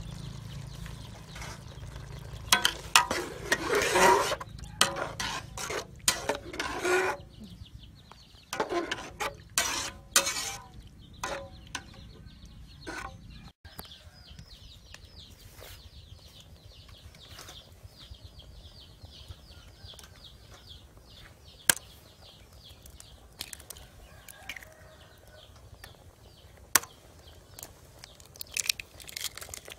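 Metal spatula scraping and clanking against a large aluminium pot of pork broth, with a run of sharp knocks in the first half. Later it is quieter, with faint rapid chirping behind and a couple of single sharp taps as eggs are cracked into the pot.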